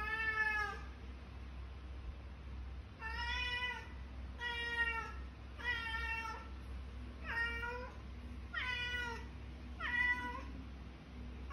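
Domestic cat meowing repeatedly, seven drawn-out meows: one at the start, then after a short pause six more about one every second and a half. The cat is calling to wake its owner.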